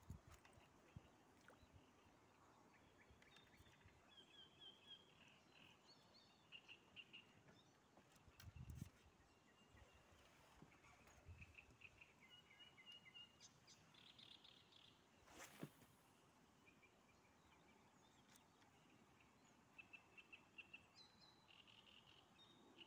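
Near silence, with faint small-bird song in short chirping runs. A soft low thump comes about nine seconds in and a sharp click a little past halfway.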